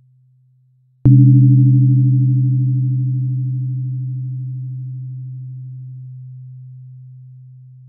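A low 128 Hz therapy tone, struck anew about a second in: a sharp onset with brief higher ringing overtones, then a pure hum slowly dying away.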